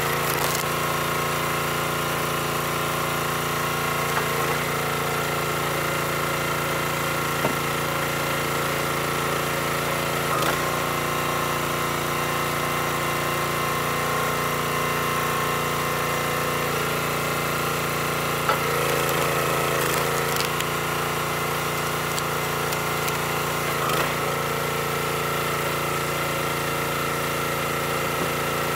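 Small gasoline engine of a hydraulic log splitter running steadily, with a few short knocks and a brief shift in its sound as the ram works through a round.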